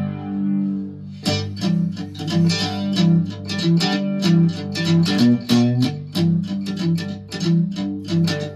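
Handmade three-string cigar box guitar: a strummed chord rings out and fades, then about a second in a picked, rhythmic intro begins, quick plucked notes over a repeating bass-note pattern.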